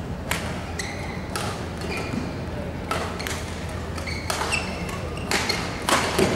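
Badminton rally: racket strings striking the shuttlecock in sharp hits about a second apart, closer together and loudest near the end, with brief shoe squeaks on the court mat.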